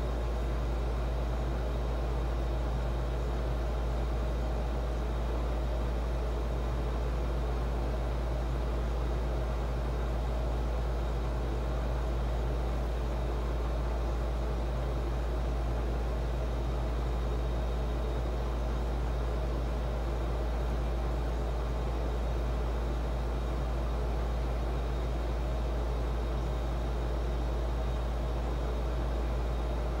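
A steady low hum that does not change, with a faint even hiss above it.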